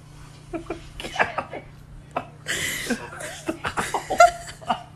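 A person laughing in short, broken bursts, with a breathy gasp about halfway through, over a steady low hum.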